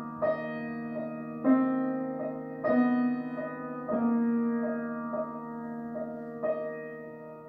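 Slow solo piano music: held, ringing chords with new notes and chords struck about every second, easing off in level toward the end.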